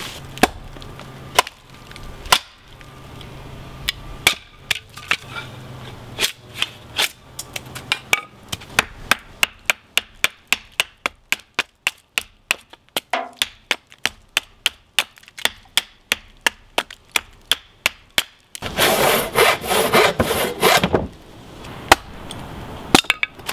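A hatchet splitting oak flooring strips on a chopping stump: sharp wooden knocks, scattered at first, then settling into a steady two or three a second. Near the end comes a couple of seconds of rough scraping and crackling noise, followed by a few more knocks.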